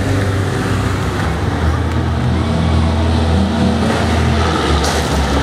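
Stunt vehicle engine running steadily, a deep drone with little change in pitch, with a brief sharp clatter about five seconds in.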